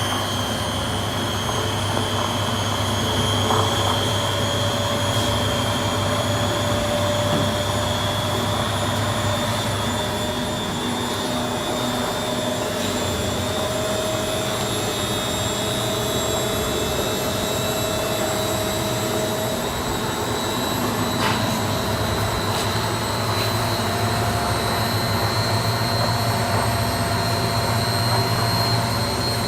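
Beko D5 7101 washing machine spinning, a steady loud roar like a passing plane with a whine that slowly rises in pitch as the drum speeds up. It is the noise of failed drum bearings, whose balls have broken apart.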